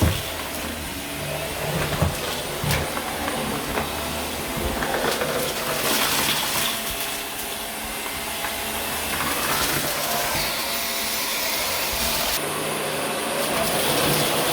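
Dyson vacuum cleaner running over carpet, a steady motor hiss with rumble that swells and eases as it is pushed along. A couple of sharp knocks near the start and about two seconds in.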